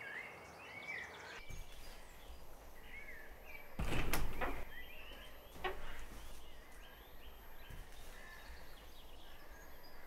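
Early-morning ambience with small birds chirping. A louder dull thump with a sharp click comes about four seconds in, and a lighter click nearly two seconds later.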